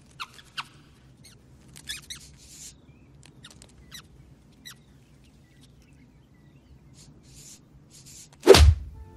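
Cartoon mouse sound effects: a few short squeaks and small scratchy scurrying noises, then a single loud whoosh sweeping down in pitch near the end.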